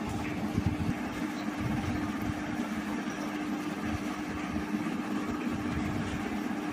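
Steady background hum with a constant low tone over rumbling noise.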